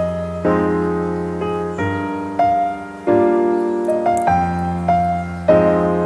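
Background piano music: calm notes and chords, each struck and left to fade before the next, changing about once a second.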